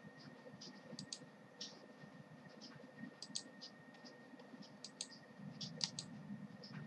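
Faint, irregular small clicks and light scratches from a computer input device, over a faint steady high-pitched electrical whine.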